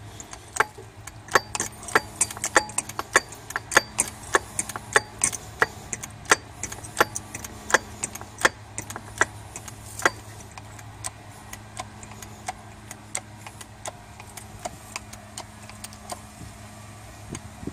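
Sharp metallic clicks, about two a second, as a 10-ton hydraulic hand pump is worked to drive a cylinder pressing a new wheel bearing into the steering knuckle. The clicks grow fainter after about ten seconds.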